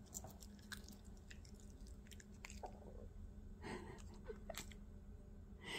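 A Maltipoo chewing a sweet potato treat: faint, scattered clicks and smacks of chewing, a little louder near the end.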